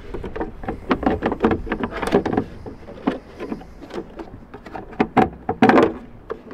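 Irregular clicks, knocks and rattles of hard plastic as a Mk3 Ford Focus ST's tail light housing is worked backwards off its clips, with one louder knock near the end.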